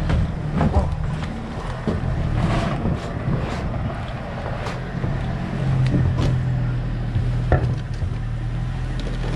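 Boat motor running steadily, with occasional short knocks over it.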